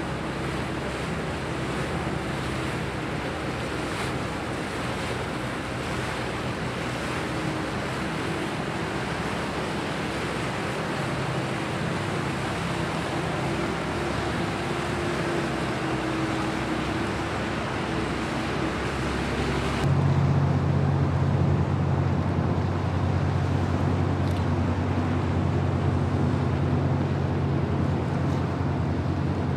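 Motorboat engine humming over steady wind and water noise. About two-thirds of the way through, a louder, deeper engine drone suddenly takes over.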